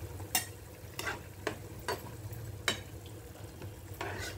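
Onion-tomato gravy sizzling in a nonstick frying pan, with a spatula scraping and knocking against the pan about six times as it is stirred.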